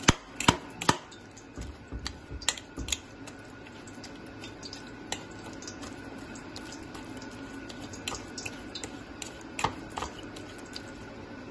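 Metal fork mashing soft boiled onion and garlic on a ceramic plate: irregular clicks and scrapes of the tines against the plate, over a faint steady hum.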